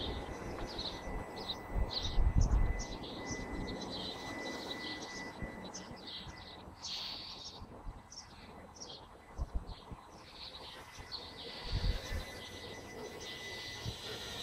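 Small birds chirping over and over, with the thin steady high whine of a Walkera QR LadyBird micro quadcopter's motors in flight. A few low bumps, the loudest about two seconds in and another near the end.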